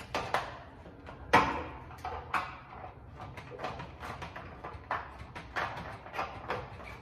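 Irregular clicks, knocks and rattles of a water heater drain pan and its drain fitting being handled as the fitting is put on, the sharpest knock about a second and a half in.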